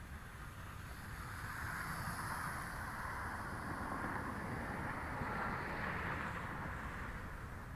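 Lishi Toys L6052 toy quadcopter's motors and propellers buzzing in flight, growing louder from about a second and a half in and easing off near the end, over low wind rumble on the microphone.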